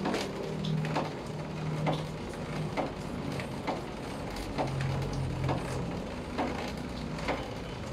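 Small handling noises of a mini bicycle pump and its plastic packaging being fitted together, over a low hum and a sharp tick about once a second.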